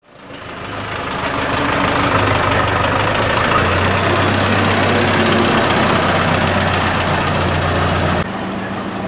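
Steyr 50 tractor's diesel engine idling steadily, fading in over the first two seconds and becoming a little quieter a little past eight seconds.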